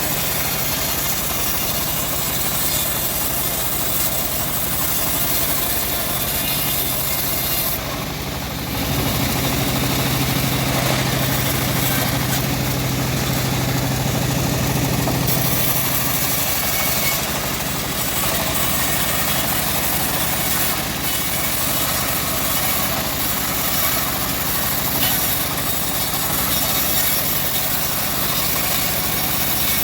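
A homemade bandsaw sawmill running steadily with a continuous mechanical drone and hiss. From about nine to sixteen seconds in, the low hum grows stronger and deeper, then settles back.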